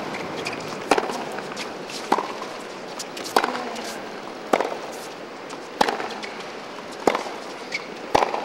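Tennis ball struck back and forth by racquets in a baseline rally: seven sharp pops, about one every 1.2 seconds, with fainter ball bounces between them.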